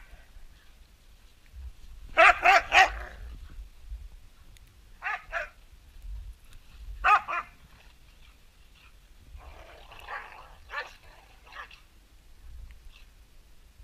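Carolina dogs giving short play barks as they wrestle and chase: three loud barks about two seconds in, a pair near five seconds, another near seven, then a looser run of quieter barks between about nine and twelve seconds.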